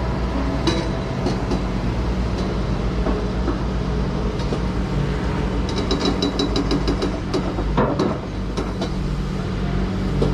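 Heavy diesel engine running steadily, with irregular metallic clicking and rattling over it.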